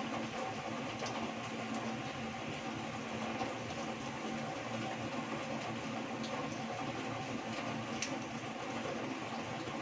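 Heavy rain pouring steadily, with a few sharp ticks about six and eight seconds in.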